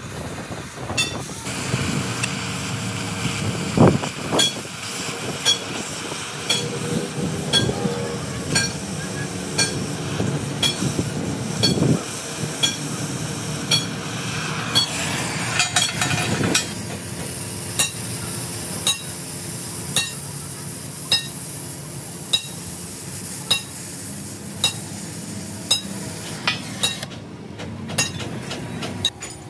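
Hammer striking metal in a steady, regular rhythm, a bit more than once a second, with a constant background noise underneath.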